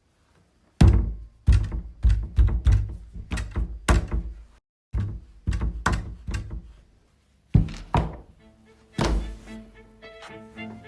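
A run of heavy thuds and knocks, about fifteen irregular hits with a short pause midway, the loudest about a second in and again near the end. A violin melody comes in over the last couple of seconds.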